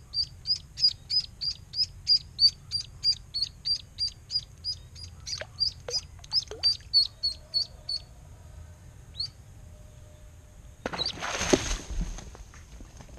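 Duckling on a fishing line peeping rapidly and evenly, about three or four high peeps a second, stopping about eight seconds in. A splash in the water follows about three seconds later.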